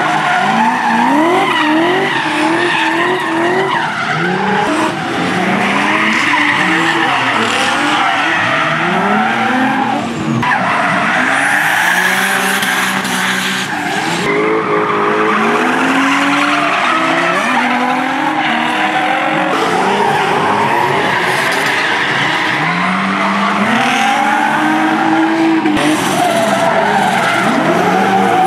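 Drift cars on track: several engines revving up and down, their pitches sweeping and overlapping, over steady tyre squeal and screech from cars sliding sideways.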